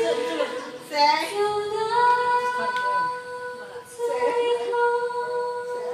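A woman singing karaoke into a handheld microphone, holding long sustained notes with a short break about four seconds in.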